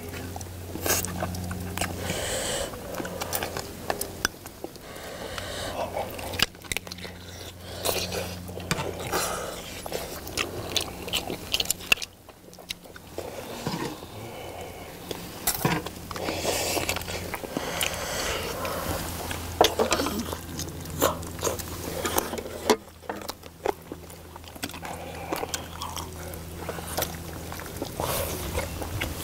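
Close-up eating sounds: chewing and biting into braised spicy chicken, with chopsticks and a ladle clicking and scraping on bowls and a metal cauldron lid. A low steady hum runs underneath.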